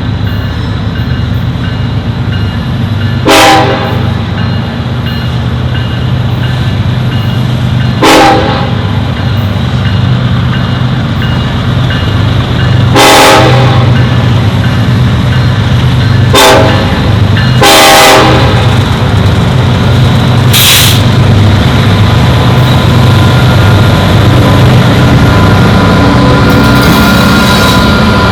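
EMD SD70ACe diesel locomotives working a loaded coal train as it pulls away, their engines running with a steady low drone that grows louder. Several short, sharp loud bursts cut through the drone.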